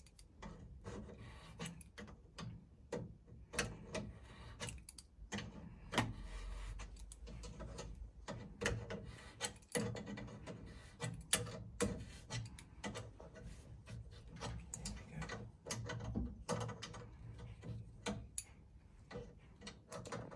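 Metal spanner clicking and scraping against a brass pump isolating valve as it is turned shut, with irregular small clicks and knocks and rubbing handling noise throughout.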